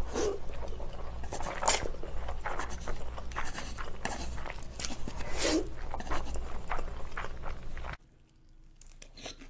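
Close-miked slurping and chewing of spicy instant ramen noodles, a dense run of wet smacks and clicks. About eight seconds in it drops to a much quieter few faint clicks.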